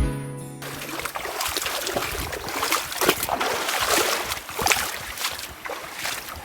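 Water splashing and trickling, with irregular sharp knocks and scuffs throughout. A music track ends about half a second in.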